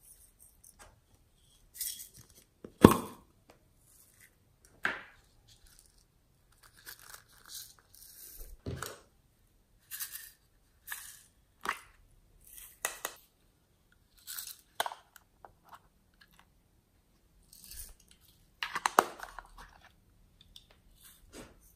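Small plastic toy cases being handled, clicked open and tapped, with their contents shaken out onto slime: a string of separate clicks, taps and crackly rustles with short gaps between them. The loudest click comes about three seconds in, and a quick cluster of them comes near the end.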